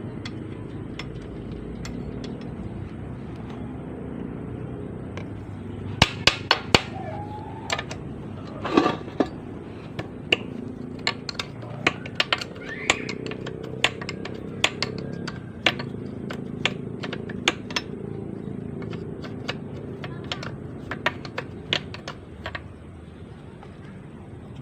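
Scattered sharp metallic clicks and knocks of hand tools on steel parts as a manual gearbox is taken apart for a bearing and seal replacement. They begin about six seconds in and come irregularly, several a second at times, over a steady low background.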